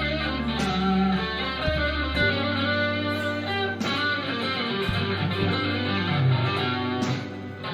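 Harley Benton Fusion III HSS electric guitar played with overdrive, running through a riff with sustained low notes and string bends.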